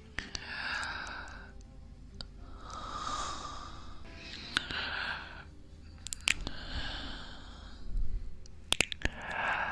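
A man's slow, close-miked breathing: about five breaths, each a second or so long, with a few soft clicks between them.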